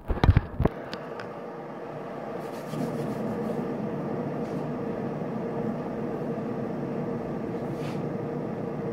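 A few sharp knocks and rubs as the camera is handled, then a steady mechanical hum with a constant whine, a little louder from about three seconds in.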